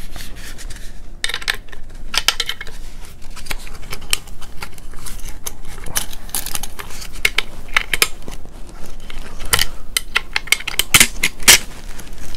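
Irregular metallic clicks and rattles as a coiled steel recoil spring and buffer are handled and pushed into the buffer tube of a Colt 9mm AR-type carbine's lower receiver. A few louder clicks come near the end.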